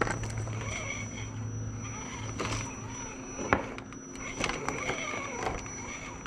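Radio-controlled scale rock crawler's electric motor and geared drivetrain whining in spurts as it crawls over rocks, with scattered knocks of tyres and chassis on stone. The loudest is a single sharp knock about three and a half seconds in.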